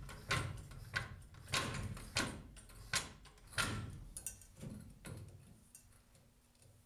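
Hydraulic floor jack being pumped by its handle, a clunk with each stroke about every two-thirds of a second, pushing a rear shock absorber up into its mount. The strokes fade out about five seconds in.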